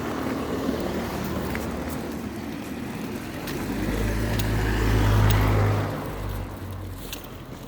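A car driving past on the road, its tyre and engine noise growing louder to a peak about five seconds in with a deep rumble, then fading away.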